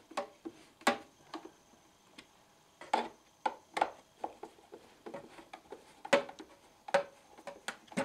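Hand screwdriver driving screws into the plastic housing of a vacuum cleaner: irregular light clicks and ticks of the screwdriver tip and screw turning in the plastic threads.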